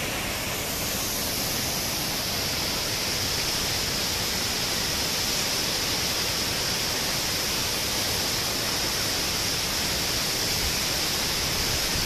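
A tall waterfall's falling water, making a steady, even rush of noise close by.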